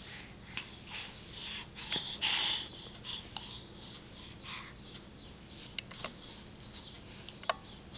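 A baby's breathy exhales and huffs, the loudest a little over two seconds in, followed by a few faint clicks.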